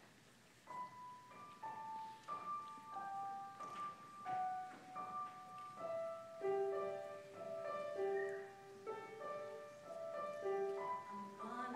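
Piano playing a slow introduction of single melody notes over held chords, each note struck and fading. It begins just under a second in, and a voice starts singing near the end.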